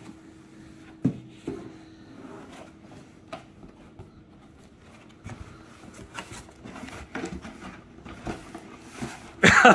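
Dense foam packing blocks and a cardboard box being handled: faint rubbing and scuffing with a few light knocks. A person's voice breaks in loudly near the end.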